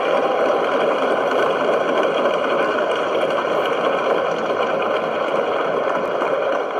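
Sustained applause from a chamber full of legislators, even and unbroken, heard through a television's speaker.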